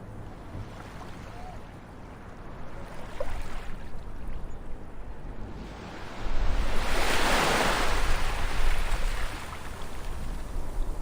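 Ocean waves washing on a shore, with one wave breaking loudly about six seconds in and slowly washing back out.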